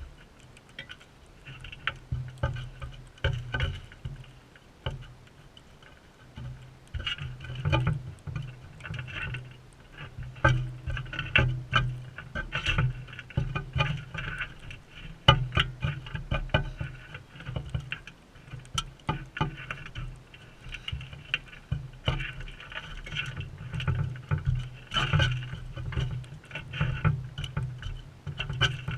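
Parrots feeding close to the microphone: irregular tapping, knocking and scrabbling of beaks and feet on the feeder, coming in uneven flurries.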